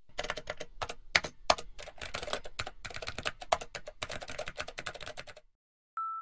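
Computer keyboard typing: a fast, uneven run of key clicks that stops abruptly about five and a half seconds in.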